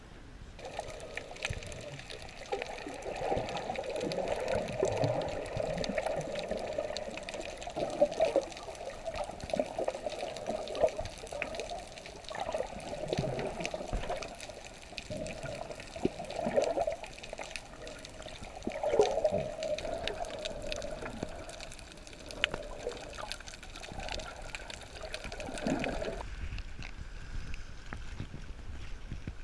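Muffled water sounds picked up by a camera held underwater: swishing and bubbling with irregular louder surges. Near the end it gives way to quieter open-air sound.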